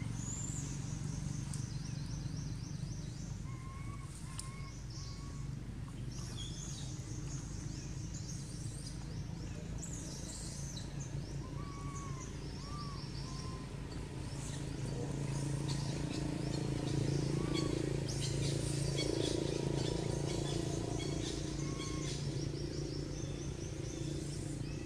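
Outdoor ambience of birds chirping, with repeated high trills and short whistled notes, over a steady low hum that grows louder in the second half.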